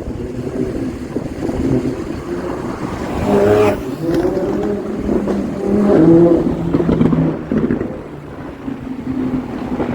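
Sports car engine revving and passing, its pitch rising and falling, loudest about three and a half and again about six seconds in.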